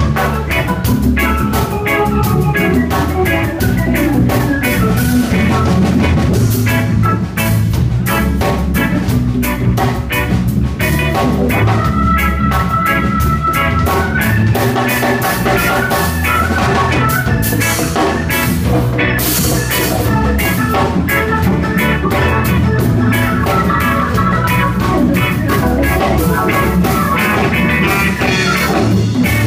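Live band music: hand-played congas driving a steady rhythm over keyboard chords with an organ-like sound.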